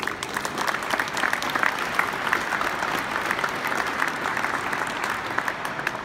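Audience applauding, a dense patter of clapping that starts at once and dies away near the end.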